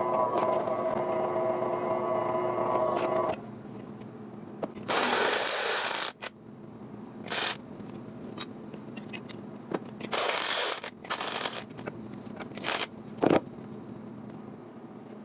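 A power tool's motor runs steadily and then stops a few seconds in. It is followed by several short bursts of noise, each a second or less, and a few clicks and a sharp knock from metalwork.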